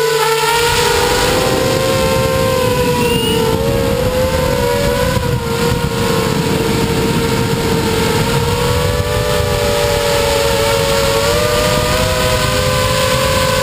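Electric motors of a small FPV quadcopter running on a 3S LiPo in flight: several close whining pitches that waver and cross as the throttle changes. Heard from the onboard camera, with a heavy rush of wind on its microphone.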